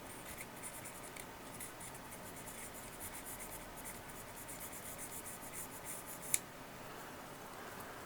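Rapid, light scratching strokes of a small tool scrubbing the pins of a chip socket on a circuit board to clean them, with one sharp click about six seconds in.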